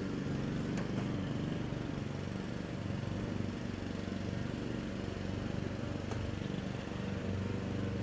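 Pickup truck's engine idling steadily.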